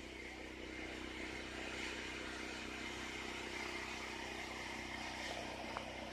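Faint, steady low hum with a light hiss, and a single short tick near the end.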